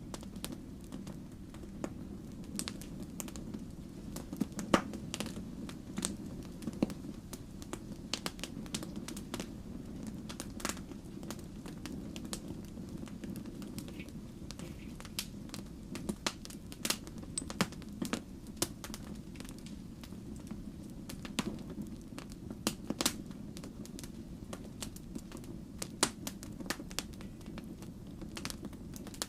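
Log fire crackling, with frequent irregular sharp pops and snaps over a steady low rumble.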